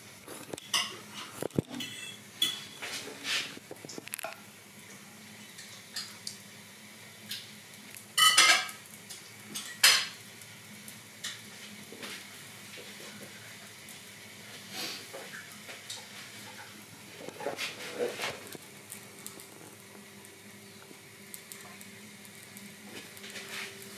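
Scattered clinks and knocks of dishes and cutlery, loudest in a short clatter about eight seconds in and a single knock about ten seconds in, over a faint steady hum.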